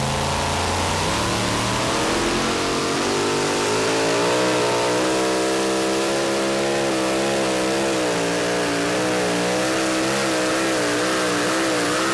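Hemi V8 of a super modified two-wheel-drive pulling truck at full throttle, hauling the sled. Revs climb over the first couple of seconds, then hold high with a pitch that wavers up and down as the sled loads the engine.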